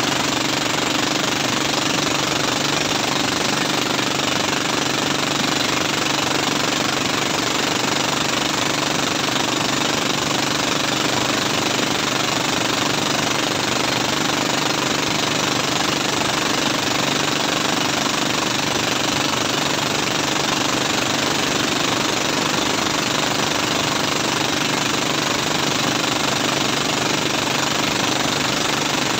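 Engine of a motorised wooden outrigger boat running steadily at constant speed while towing a loaded banana boat.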